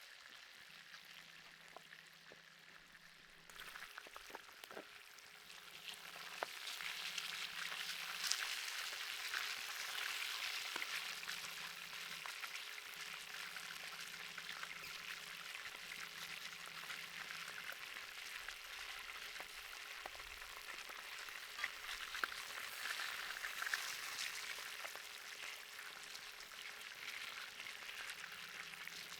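Food sizzling over heat, with scattered pops and crackles; the sizzle sets in about three and a half seconds in and holds steady.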